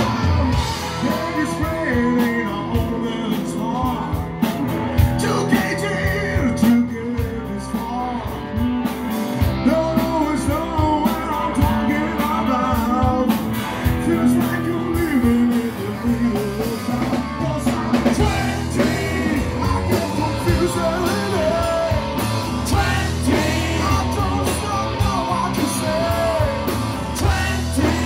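Live rock band playing: distorted electric guitars and drum kit under a male lead vocal, with other band members joining in on the singing near the end.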